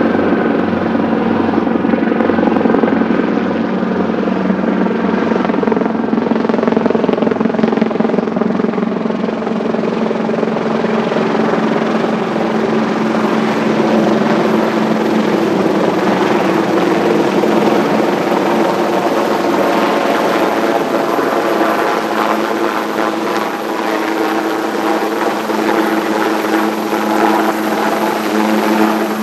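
Sikorsky S-76D helicopter approaching: steady beating of its main rotor over the twin turboshaft engines. A high turbine whine comes in about a third of the way through and grows louder as the helicopter draws near.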